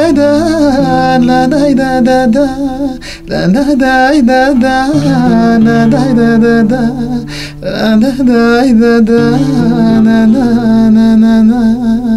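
A man singing a slow, ornamented melody with a wavering pitch over sustained low keyboard chords that change every few seconds.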